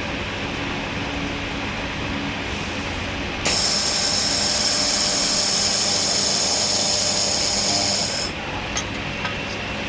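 Handheld laser welding machine with its unit humming steadily. About three and a half seconds in, a loud high-pitched hiss with a whine in it starts suddenly as the welder fires, holds for about five seconds, then cuts off, followed by a couple of faint clicks.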